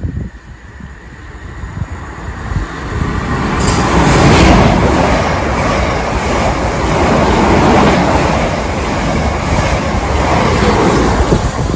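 South Western Railway passenger train approaching and running along the platform. Its noise builds over the first few seconds, then stays loud.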